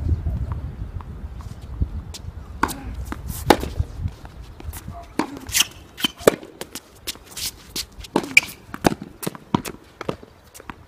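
Tennis balls struck by rackets and bouncing on the court: an irregular series of sharp pops, several in quick succession. A low rumble underlies the first few seconds.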